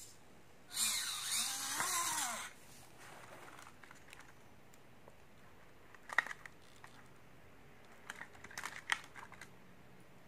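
Small electric motor and gearbox of a mini RC crawler whining under throttle, the pitch rising and falling, from about a second in to about two and a half seconds. Later come a few short clicks and knocks as the truck is handled.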